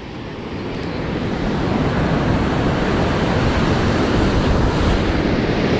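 Surf washing on the shore with wind on the microphone, a steady rushing noise that swells over the first two seconds and then holds.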